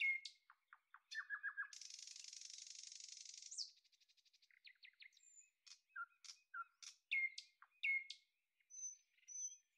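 Quiet chirping of a small songbird: quick down-slurred chirps and short rapid trills, a buzzy rattle lasting about a second and a half from about two seconds in, and a few thin high whistles near the end.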